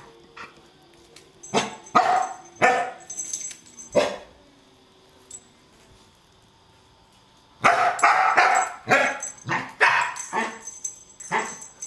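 Dog barking at a vacuum cleaner: a few separate barks in the first few seconds, then after a pause a fast, excited run of barks.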